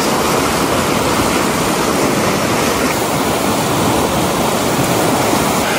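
Hunza River running fast over rapids: a steady, loud rush of water.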